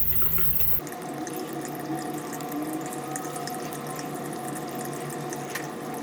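Steady hum and hiss with light scattered clicks of plastic toy-car wheels being handled and fitted onto small motor shafts; a low rumble cuts off about a second in.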